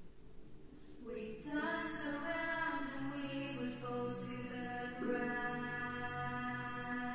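Several girls' voices singing a song together in harmony with held notes, with little or no accompaniment, played back from a TV and picked up off its speaker. The singing swells in about a second in.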